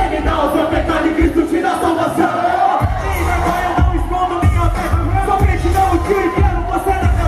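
Music with a steady bass beat and several voices singing, with crowd noise under it; the bass drops out for about a second about two seconds in, then comes back.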